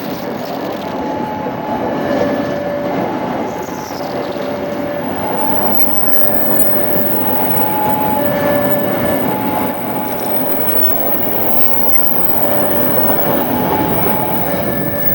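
A freight train of railway tank wagons rolling past, with a steady rumble and rattle of wheels on rails and some wheel squeal. Behind it, a faint two-note tone alternates between a higher and a lower pitch, each note lasting about a second.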